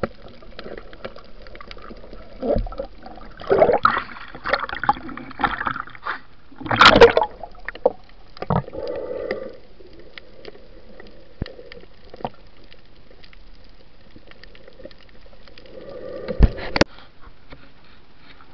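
Water sloshing and gurgling around a spearfisher's camera as a speared fish is handled, with irregular bursts of water noise, the loudest about seven seconds in, and several sharp knocks later on.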